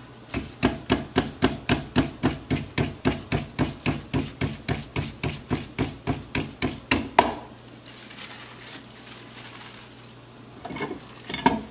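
Hands patting and slapping a ball of fresh blue corn masa, about four even slaps a second for some seven seconds, then stopping. Near the end come two knocks as the tortilla press is handled.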